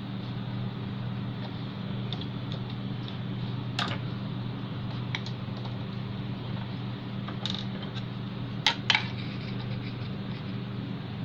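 A few sharp clicks and taps from printer parts being handled during disassembly, the two loudest close together near the end, over a steady low hum.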